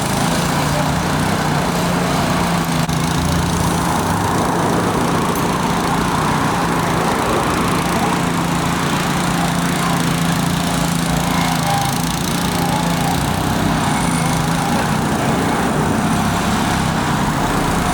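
A small engine-driven construction machine running steadily at a constant speed, with an even engine drone throughout.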